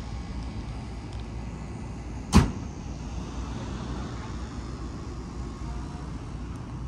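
Steady low outdoor rumble, like wind and distant traffic, broken once, a little over two seconds in, by a single sharp, loud knock.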